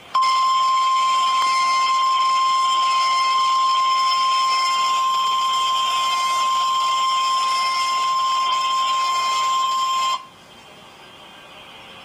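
Emergency alert attention tone: one steady, loud single-pitch beep near 1050 Hz, the National Weather Service weather-radio warning alarm, held for about ten seconds and then cutting off sharply. It signals that a spoken weather alert is about to follow.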